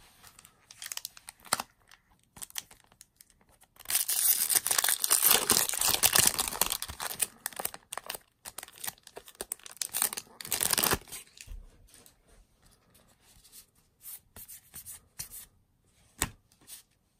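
A Magic: The Gathering booster pack's foil wrapper crinkling and tearing open. It is loud and rough for about seven seconds, starting about four seconds in, with a brief break partway through. Light clicks and rustles of the cards being handled come before and after it.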